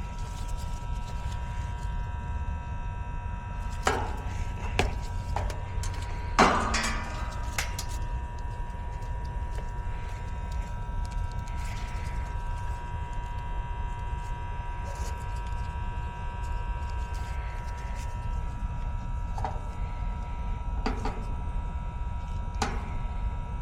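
Sharp clicks and knocks of hands and tools working on an air-conditioner condensing unit's capacitor wiring, several around four to seven seconds in with the loudest near the middle of that run, and a few more near the end, over a steady low hum with a faint thin tone.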